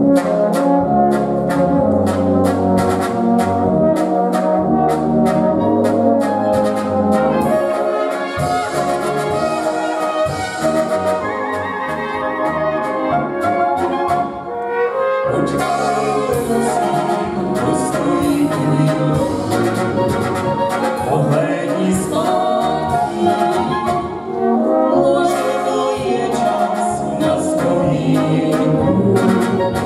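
Folk brass band playing live: tuba, horns and trumpets over a steady drum beat, starting abruptly. Singers join in partway through.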